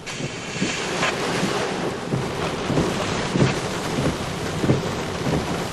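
Steady rushing noise of wind and rain, with repeated low rumbles and thuds.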